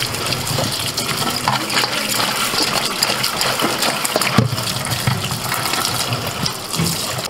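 Tap water running onto peeled pointed gourds in a stainless-steel colander as hands rub and turn them, with scattered knocks and clinks of the gourds against the steel.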